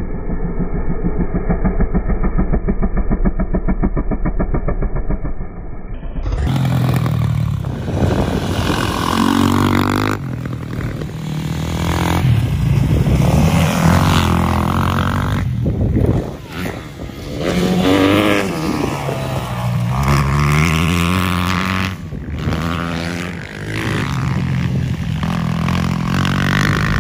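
Dirt bike engines revving, their pitch rising and falling as the bikes accelerate and back off, in several short clips that cut off abruptly. The first six seconds sound muffled.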